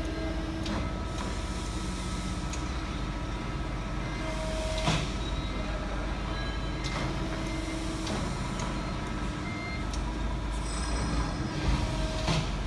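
Harsle hydraulic press brake running with a steady low hum, faint thin whining tones coming and going over it. A few sharp clicks, the loudest about five seconds in.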